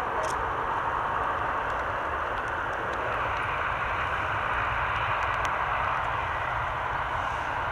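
Aircraft engines running: a steady, even rushing noise with a few faint ticks on top.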